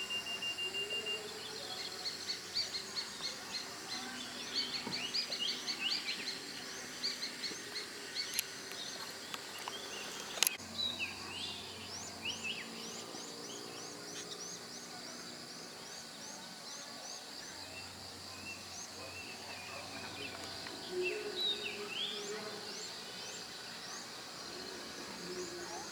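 Outdoor ambience of birds chirping: many short high calls and trills, with a single sharp click about ten and a half seconds in.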